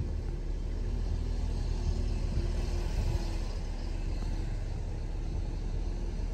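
Car driving along a road: a steady low rumble of engine and tyre noise with a faint hum.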